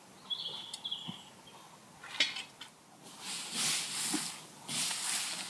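Dry fallen leaves rustling and crunching in two bursts, about three and a half and five seconds in, as leaves are scattered or walked through. Before them come a brief high chirp near the start and a single knock about two seconds in.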